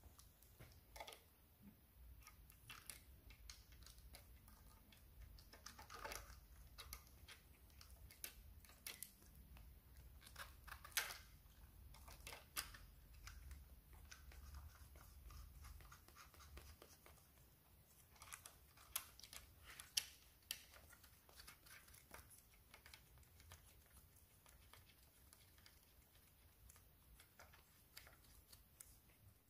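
Faint, scattered clicks and scrapes of small plastic and metal parts being handled: diesel injector spill (leak-off) pipes and their connectors being fitted onto the injectors of a Land Rover 3.0 TDV6 V6 diesel.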